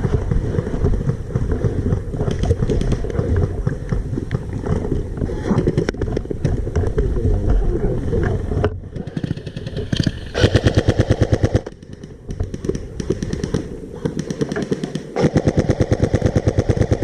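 Airsoft electric rifle firing on full auto: two loud runs of rapid, evenly spaced shots, the first about ten seconds in and lasting over a second, the second starting near the end. Before them, a dense low rumbling noise.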